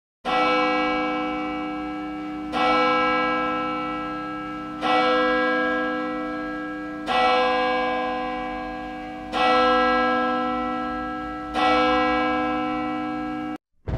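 A church bell tolling six slow strokes, a little over two seconds apart, each ringing and fading before the next. The sound cuts off suddenly near the end.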